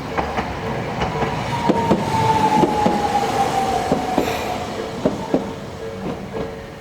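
Toden Arakawa Line tram running over a level crossing, its wheels clicking irregularly over the rail joints, with a whine from the tram that falls slowly in pitch over a few seconds. The crossing's warning bell keeps ringing steadily behind it.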